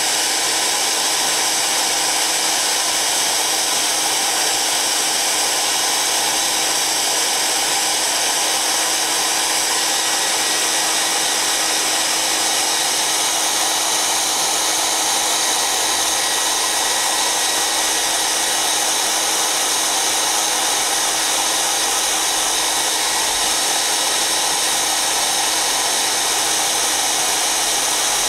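Hand-held hair dryer running steadily, a constant rush of air with a low motor hum beneath it, blowing hot air onto an inkjet print head to dry it after cleaning.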